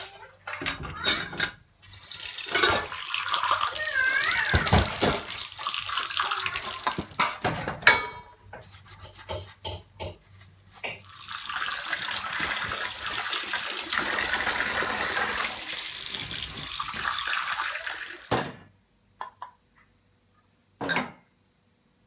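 Tap water running into a stainless-steel kitchen sink in two long spells while cups are washed and rinsed, with short knocks of cups against the steel bowl and sink in between. Near the end, a cup is knocked down onto a steel shelf.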